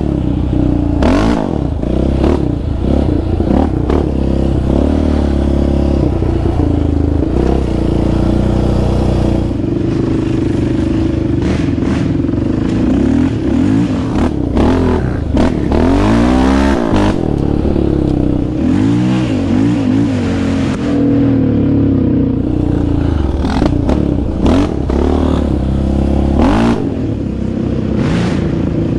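Sport quad engine revving up and falling back again and again as it is ridden hard along a bumpy dirt trail, with clattering knocks from the rough ground.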